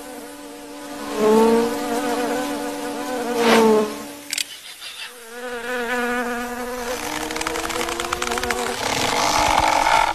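Cartoon sound effect of flies buzzing in flight. The buzz swells and bends in pitch twice as they pass close, then rises slowly in pitch in the second half.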